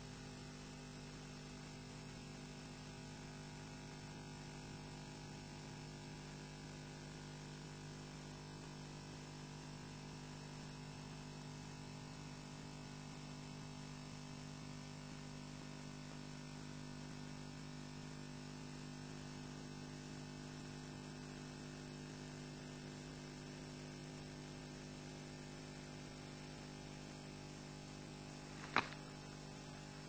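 Steady electrical hum with a thin high whine, the noise floor of the nest camera's audio line; one sharp click about two seconds before the end.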